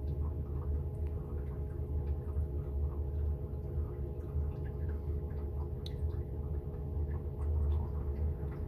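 A steady low hum, with a few faint steady tones above it, and scattered faint light taps and clicks.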